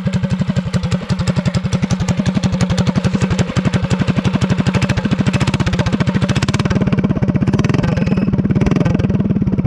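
Predator 212cc single-cylinder engine on a DoodleBug DB30 mini bike, in Stage 1 tune with the governor removed, idling just after a first-pull start with the choke off.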